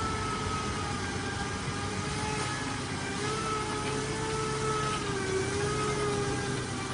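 A motor vehicle's engine running steadily, with a slightly wavering whine over the rumble.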